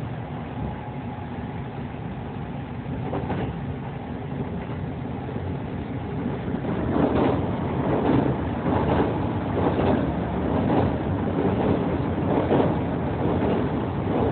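Kintetsu express train running on the rails, heard from inside the carriage: a steady rumble of wheels on track. From about seven seconds in it grows louder, with regular rail-joint knocks about once a second.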